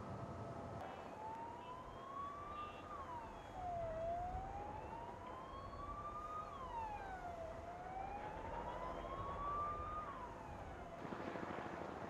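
Emergency vehicle siren wailing: three slow rises in pitch, each followed by a quicker drop, repeating about every three and a half seconds.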